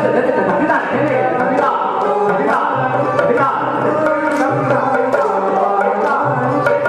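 Qawwali music with tabla playing a steady rhythm under singing and melodic instrumental accompaniment.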